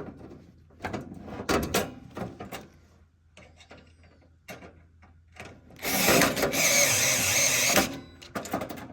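Light clicks and knocks of small parts and screws being handled, then a power drill-driver runs for about two seconds, driving in a screw that fastens the exhaust fan.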